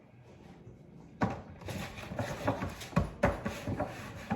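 Kitchen handling noises as leftovers are packed into plastic food containers. After a quiet start, about a second in, there is a sudden knock, followed by irregular knocks, clicks and rustling.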